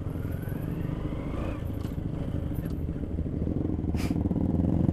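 Motorcycle engine running steadily under the rider, getting a little louder near the end, with a single sharp click about four seconds in.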